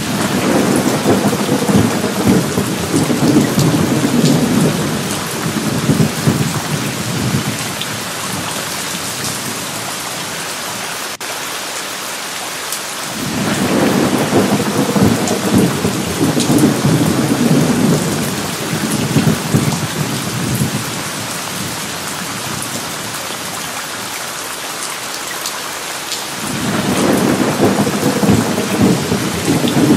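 Steady rain with three long rolls of thunder: one starting right at the beginning, another about thirteen seconds in, and a third about twenty-six seconds in, each rumbling for several seconds before fading back to the rain.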